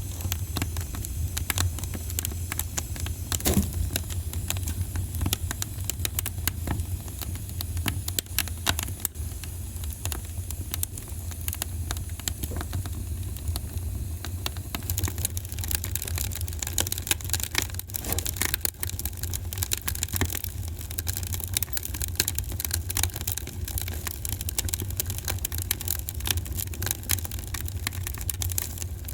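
Wood fire in a fireplace crackling, with many small irregular snaps over a steady low rumble.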